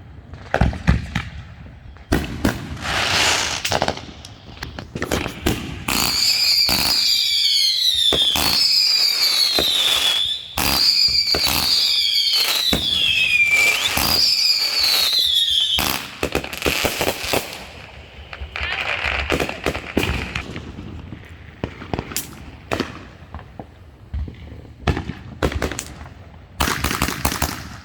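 Fireworks going off: a string of sharp bangs and crackles, with about ten seconds of loud, high warbling whistles in the middle, rising and falling in pitch.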